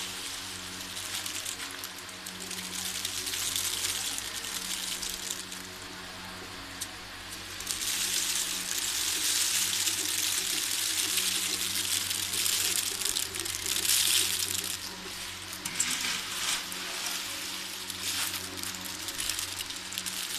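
Unshelled peanuts poured in a stream from a pan onto a heap in front of a pedestal fan: a steady rushing patter, loudest through the middle and again near the end, with the fan motor humming underneath. This is winnowing, the fan's air blowing the dust and loose shells out of the falling nuts.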